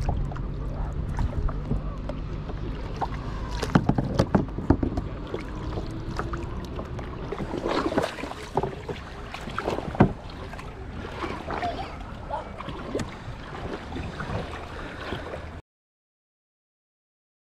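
Shallow seawater sloshing and splashing around the kayak, with wind on the microphone and a scatter of sharp knocks, the loudest about ten seconds in. The sound cuts off abruptly near the end.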